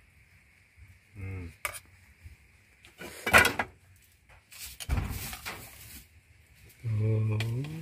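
A metal spoon and ladle clinking and scraping against aluminium cooking pots as rice and soup are served, in a few separate clatters. A short pitched, voice-like call sounds near the end.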